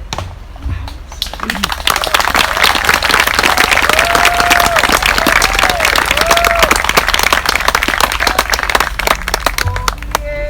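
Audience applauding. The clapping builds about a second and a half in, stays dense, and thins out and stops near the end, with a few faint calls heard through it.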